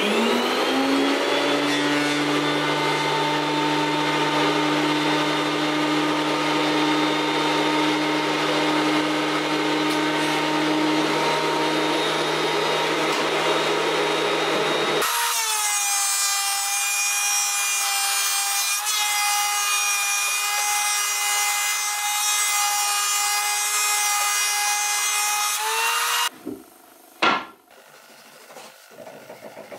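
Benchtop thickness planer starting up and running as a fir board is fed through its cutterhead. About halfway in its pitch jumps higher and the low hum drops away. It cuts off abruptly a few seconds before the end, followed by a single knock.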